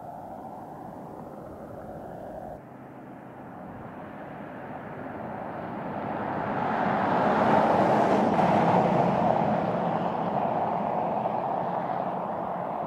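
BMW X7 M50i driving past: engine and tyre noise building as the SUV approaches, loudest about eight seconds in, then fading as it pulls away.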